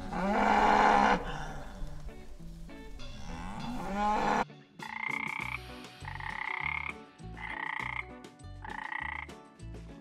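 A cow moos twice, then a frog gives four short, even calls about a second apart.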